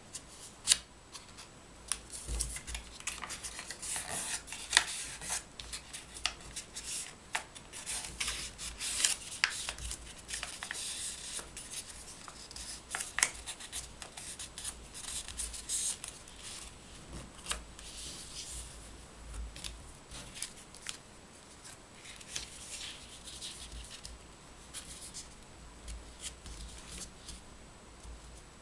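A printed sheet of paper being folded by hand into an origami model: irregular crisp rustles and crackles as it is handled and pressed into creases, with a few sharper snaps.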